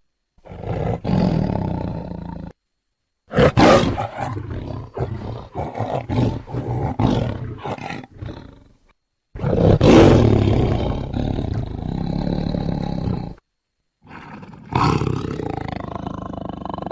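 A tiger's roars and growls in several separate takes, spliced together with sudden dead-silent gaps between them. The second take is a run of short growls one after another; the others are longer roars that fade out.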